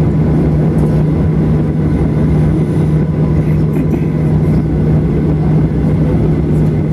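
Steady cabin noise of a Boeing 737-800 taxiing with its CFM56-7B engines at idle: a low rumble under a steady, unbroken hum.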